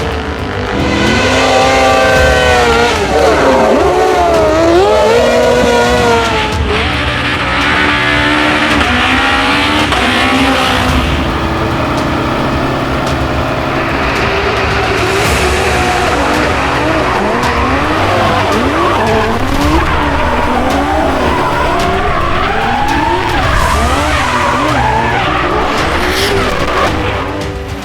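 Race car engines revving up and down through the gears, a series of short clips cut one after another, each with its own rising and falling pitch.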